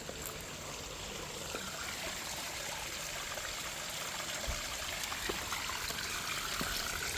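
Small rocky mountain stream: water rushing and trickling steadily over rocks, growing slightly louder toward the end.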